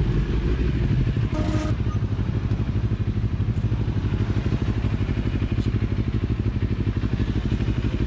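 CFMoto NK400 motorcycle's parallel-twin engine idling steadily, with a short burst of noise about a second and a half in.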